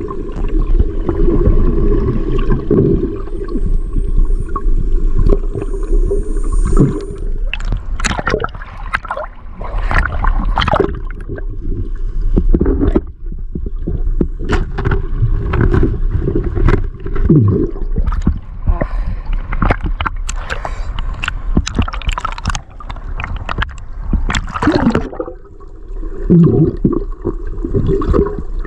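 Underwater sound heard through a camera's waterproof housing: gurgling, bubbling water over a low rumble. From about eight seconds in there is a run of irregular sharp clicks and knocks.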